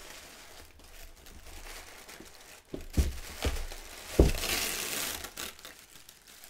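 Packaging crinkling and rustling as statue parts are unpacked, with a few dull knocks about three to four seconds in, followed by a louder rustle.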